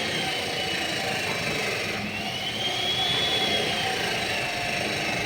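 A power tool running steadily over a constant machine hum, its high whine rising about two seconds in and sinking again near the end.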